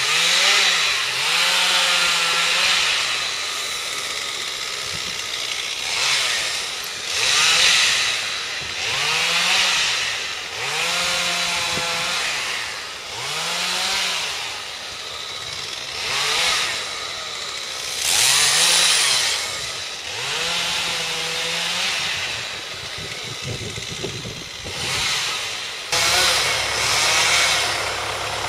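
Two-stroke chainsaw cutting branches, revving up and easing off again and again, about every two seconds. Near the end a tractor engine running steadily takes over.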